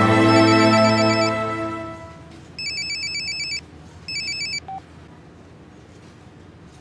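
Background music fading out, then a mobile phone ringing: two short bursts of a warbling electronic ringtone, the second cut short as the call is answered, followed by a brief low beep.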